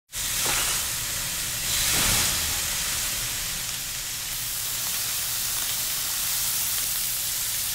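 Slices of pork sizzling on a very large hot steel griddle, a steady hiss that swells briefly about two seconds in.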